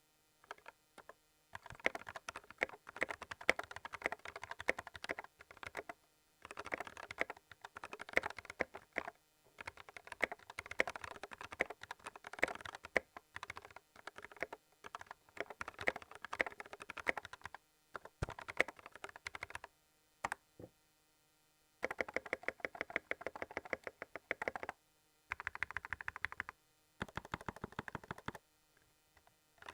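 A custom keyboard being typed on: runs of quick, crisp keystroke clicks in bursts, broken by short pauses, with a longer pause of about two seconds past the middle.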